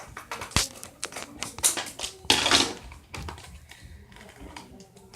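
Scissors snipping through a plastic dart package, with clicking and handling of the packaging and a louder rustle about two and a half seconds in.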